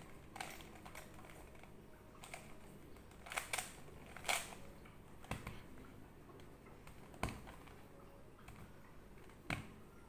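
Plastic 3x3 Rubik's cube being scrambled: irregular sharp clicks as its layers are twisted, spaced a second or so apart, the loudest about four seconds in.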